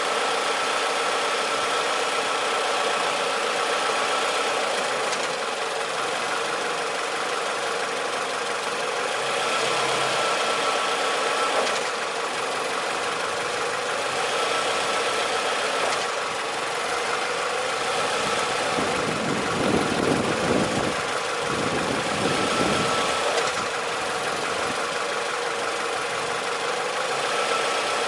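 Car engine idling steadily while the automatic transmission is shifted into gear. About two-thirds of the way through, a heavier, rougher rumble swells for a few seconds as the car shakes: the harsh engagement that the owner takes as a sign of a damaged automatic transmission.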